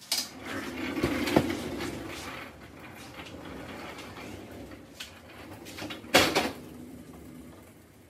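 An engineless Honda Civic coupe being pushed across a concrete garage floor: its tyres and the casters of the dolly under its front end rolling and rumbling. There is a click early on and a sharp knock about six seconds in.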